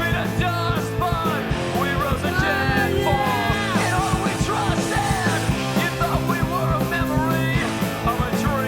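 Punk rock song with yelled vocals over distorted guitars and drums, playing at a steady loud level.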